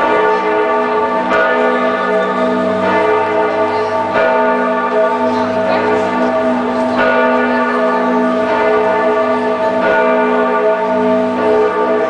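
Church bells of Giotto's Campanile at Florence Cathedral pealing together: several large bells ring over one another in a continuous clangour, with fresh strikes about every second and a half.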